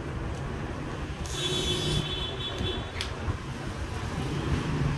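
Steady low street-traffic rumble with a motorbike passing. A short, high-pitched hissing sound comes about a second and a half in, and a sharp click about three seconds in.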